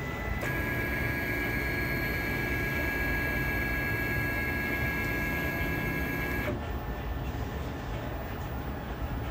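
MakerBot Replicator 2 desktop 3D printer running at the start of a build while its extruder heats. A steady whine of several fixed pitches starts about half a second in and cuts off suddenly about six seconds later, over a steady low rumble.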